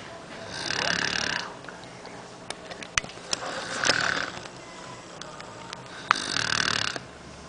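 A sleeping person snoring: three loud, raspy snores at a steady rhythm, about one every two and a half to three seconds. A few sharp clicks fall between the snores.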